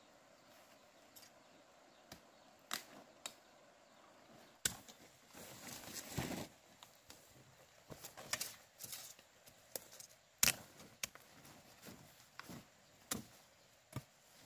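Irregular sharp knocks and clacks of hard objects striking, about a dozen spread unevenly, some in quick clusters, the loudest about ten and a half seconds in.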